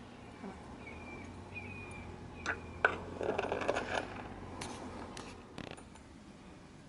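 Light metal chain and glass feeder clinking as a feeder is handled and hung: several sharp clinks with a short rattle in between.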